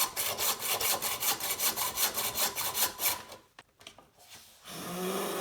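A saw cutting through a mountain-bike fork's steerer tube, with rapid, even strokes about five a second that stop about three seconds in. A steady low hum starts near the end.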